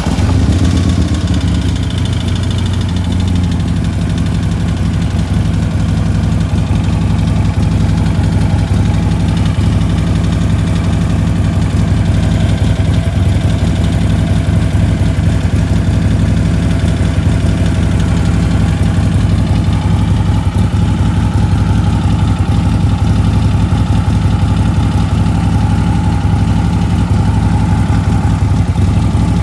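2016 Harley-Davidson V-twin idling steadily just after a cold start, with a rapid ticking over the idle: lifter noise on a cold start.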